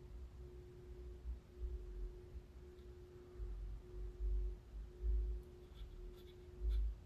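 A steady, low-pitched hum with a few short breaks, over soft low thumps, with a few light clicks near the end.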